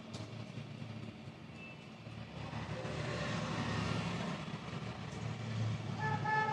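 Low rumble of passing vehicles in the background, swelling a few seconds in, with a horn starting to sound near the end.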